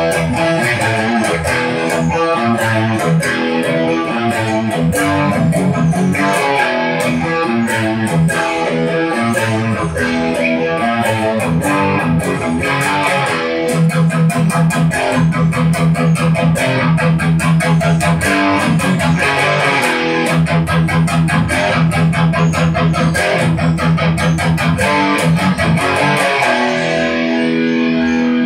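Distorted electric guitar riffing through a Blackstar HT5 Metal valve amp into a cab with a Celestion Seventy 80 speaker, played on a Schecter Omen 6 FR with a Seymour Duncan SH-4 bridge pickup. Through the middle it plays a fast run of repeated low chugging notes, then ends on a held ringing chord.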